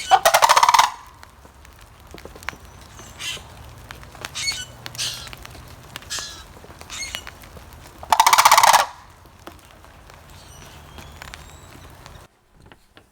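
Sandhill cranes calling: two loud rolling, rattling calls, one at the start and another about eight seconds later, with fainter short sounds between them.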